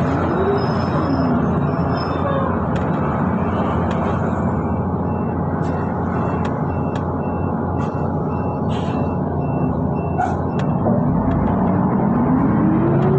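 Transjakarta bus engine and road noise heard from inside the cabin as a steady rumble, the engine note rising steadily near the end as the bus gathers speed. A faint high beep repeats evenly for several seconds in the middle.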